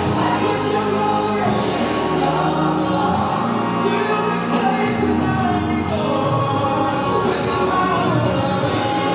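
Gospel song with singing, playing continuously as accompaniment to a mime dance.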